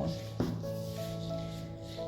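Background music with long, held notes, and a single short click about half a second in.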